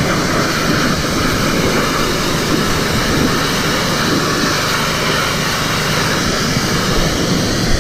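Kärcher 2400 PSI pressure washer spraying through a 25-degree nozzle: a steady hiss of the water jet hitting the dirt bike over the washer's running motor. The spray cuts off right at the end as the trigger is released, leaving the motor running.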